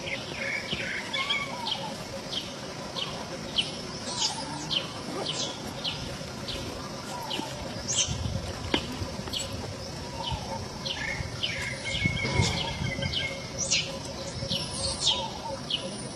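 Repeated short, high-pitched chirping calls, roughly two a second, each sliding sharply down in pitch, with a few longer squealing calls among them.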